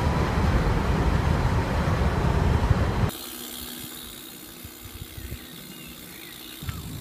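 Steady rumbling of a moving train heard from inside the carriage, cutting off suddenly about three seconds in, leaving faint, quiet street ambience.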